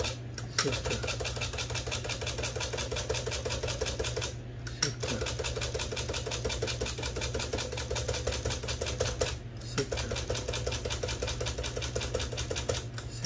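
Remington portable typewriter carriage stepping along under test of its spacing and tab mechanism: rapid, even ticking of the escapement. The ticking comes in three runs, each broken by a short pause and a louder knock.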